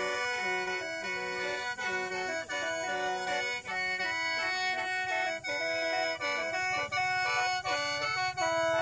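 Khaen, the Lao bamboo free-reed mouth organ, playing a melody over a held drone note. The chords are cut into short rhythmic pulses by the player's breathing.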